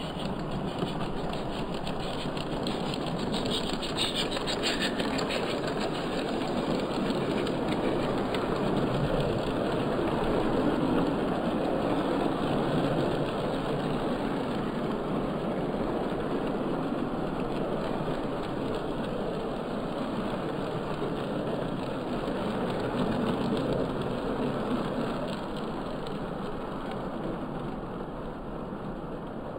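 Hornby OO gauge live steam model locomotive and its coaches running past on the track, a steady noisy running sound played back slowed down. It grows louder toward the middle and fades away near the end.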